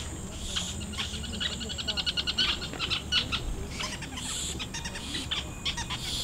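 Birds chirping, with a fast run of quick repeated chirps between about one and a half and three seconds in, over a steady high insect whine.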